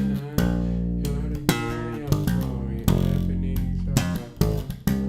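ESP LTD B-155DX five-string electric bass playing the chorus line of a gospel song in held notes that change pitch every second or so, with a man singing along.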